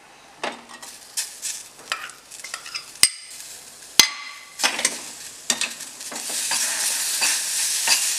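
A metal spoon scraping and clinking in a metal kadai as chopped tomato is stirred into frying onions and spices, with two sharp clinks about three and four seconds in. A frying sizzle grows louder in the second half.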